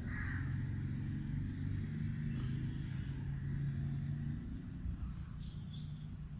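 A low, steady engine hum that fades about four seconds in, with two brief high-pitched sounds near the end.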